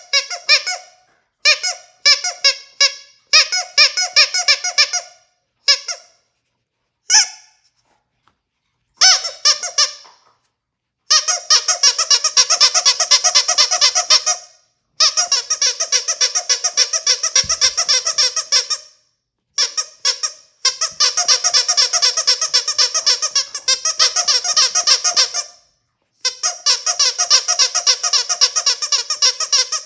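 Squeaky dog toy squeezed rapidly over and over, giving fast trains of high squeaks. It comes in short bursts in the first ten seconds or so, then in long runs of several seconds with brief pauses between them.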